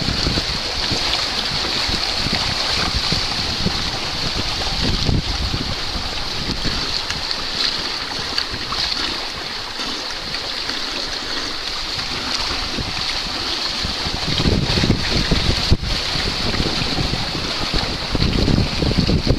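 Water rushing and hissing along the hull and wake of a small Virus Plus sailing trimaran going fast, with wind buffeting the microphone, heavier in the last few seconds.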